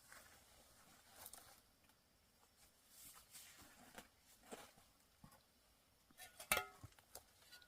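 Near silence with a few faint, scattered taps and rustles and one sharper click near the end.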